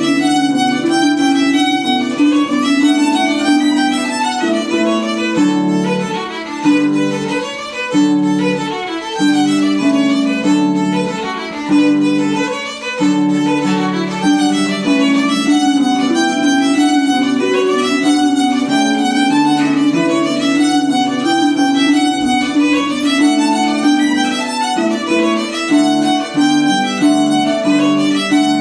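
Violin playing a lively Irish dance tune (hornpipe or reel) in quick running notes, over a lower accompanying part.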